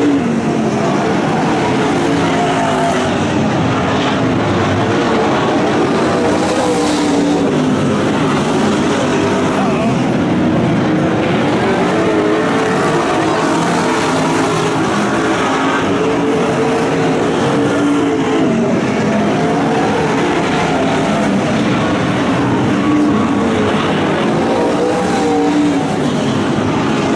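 Engines of a pack of Super Stock dirt-track race cars running laps, loud and continuous, their pitch rising and falling as the cars accelerate and back off through the turns.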